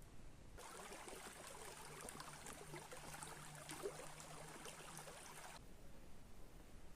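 Faint flowing stream water, a crackling trickle that cuts in sharply about half a second in and cuts off just as sharply about a second before the end.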